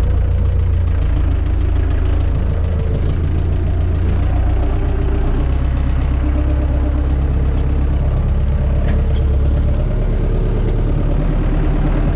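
Renault 651 tractor's engine running steadily, heard from inside the cab as a deep, constant hum; the engine note shifts slightly about ten seconds in.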